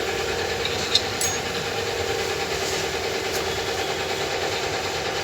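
Steady mechanical hum of a running machine, with one sharp click about a second in.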